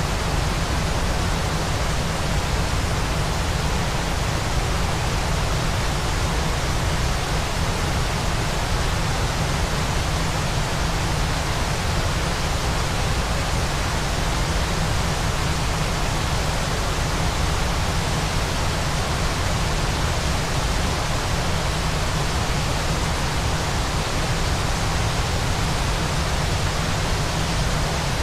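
Waterfall white noise: an even, unbroken rushing hiss with a heavier low rumble, holding a steady level throughout.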